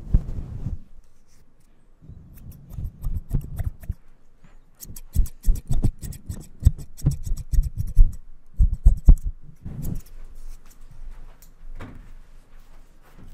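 Hair-cutting scissors snipping close to a furry microphone cover, in several quick runs of crisp snips. Low rustling thumps come from the fur being handled right at the microphone.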